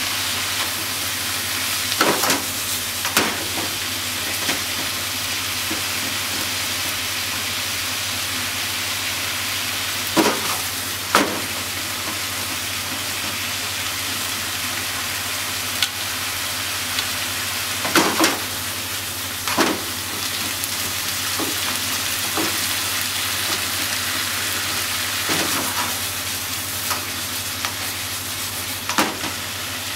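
Pork and vegetables sizzling steadily in a frying pan as they are stir-fried. Now and then the wooden cooking chopsticks knock and scrape against the pan, in pairs about two, ten and eighteen seconds in and once near the end.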